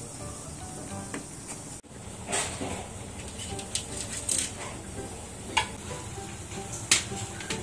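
Oil sizzling in a frying pan, a steady hiss broken by a few sharp crackles and clinks.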